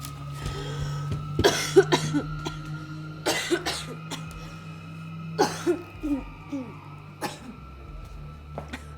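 A person coughing in several harsh bursts, over a steady low hum.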